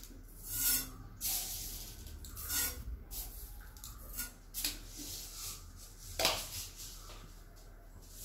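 Mustard seeds spooned from a plastic tub into a stainless-steel pan of heating coconut oil: a few short swishing sounds as each spoonful lands, the one about six seconds in the loudest.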